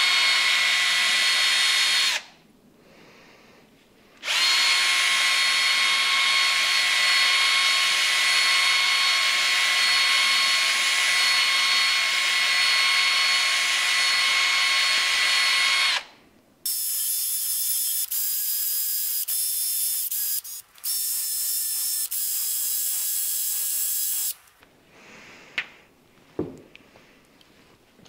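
Cordless drill spinning a brass bottle brush inside the bore of a brake master cylinder to scour out the last residue. It runs steadily in a short burst, then for about twelve seconds, then again at a higher pitch with several brief stops. Near the end there are a couple of light knocks as parts are set down.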